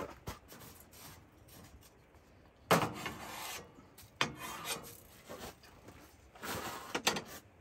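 A wooden-handled utensil scraping snow around inside a skillet to scour the pan clean, in several rasping strokes, the loudest about three seconds in.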